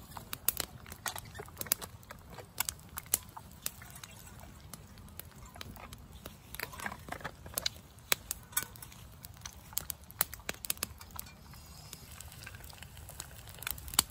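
Small wood fire crackling in a portable fire grill, with irregular sharp pops over a low steady rumble.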